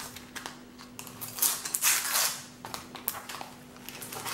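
Sticker packet being torn open by hand, its thin wrapper crinkling and ripping in several short rasping bursts, the longest about a second and a half in.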